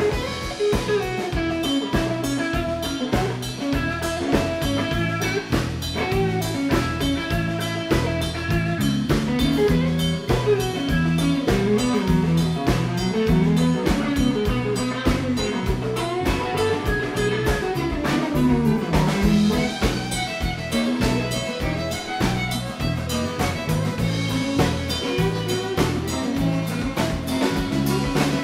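Live country band playing an instrumental passage: electric and acoustic guitars, fiddle and bass over a drum kit keeping a steady beat, with a lead line bending in pitch.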